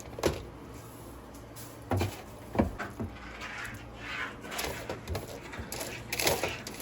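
Kitchen handling sounds: a few sharp knocks and clunks of cookware and cupboards, with short stretches of rustling in between.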